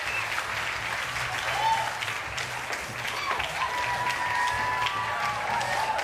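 Audience applauding, a dense steady clapping with voices calling out above it.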